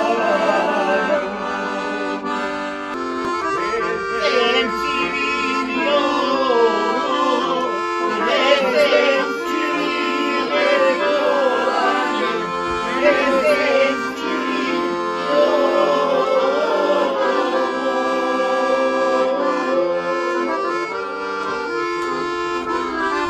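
Accordion playing a traditional folk tune in sustained, full chords, continuing the song that was just being sung.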